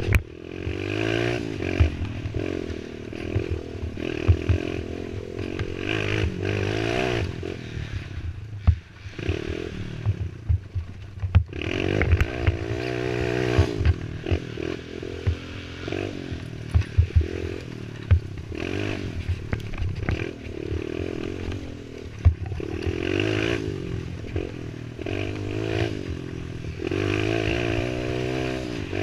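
Youth racing quad's engine revving up and down as it is ridden hard, with frequent knocks and clatter over bumps and a brief easing off about nine seconds in.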